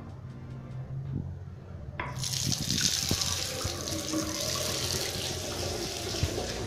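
A basin tap is turned on about two seconds in, and water runs steadily into the washbasin and down the drain: a leak test of a newly fitted bottle trap.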